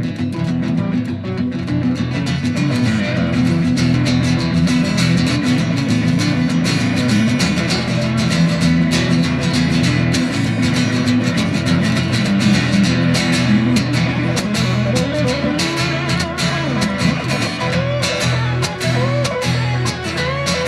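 Guitar-led instrumental music: guitars played over a bass line, with a few bent notes near the end.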